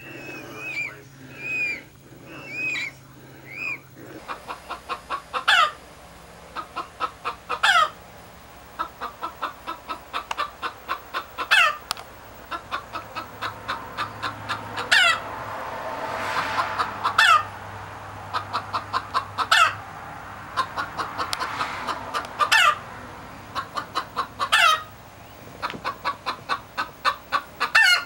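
Young bird chicks peeping for the first few seconds. Then a chicken cackles over and over: runs of quick clucks, each capped by a loud screaming squawk that sweeps down in pitch, about every two seconds.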